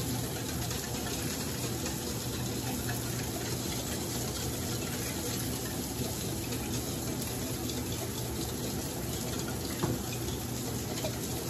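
Steady sizzling of a beef roast searing in a cast iron skillet, with a wire whisk faintly ticking against a stainless steel bowl as oil and seasonings are whisked together.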